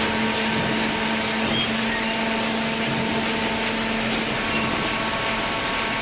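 Horizontal cardboard baler's hydraulic power unit running: a steady, even whirring machine noise with a low hum that fades about three-quarters of the way through.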